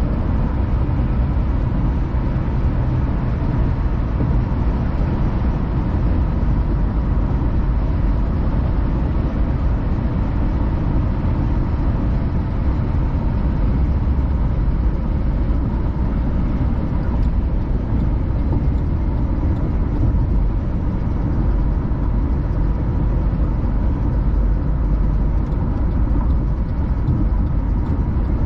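Car driving at a steady speed: a constant rumble of road and tyre noise with engine hum, heaviest in the low end, with no changes.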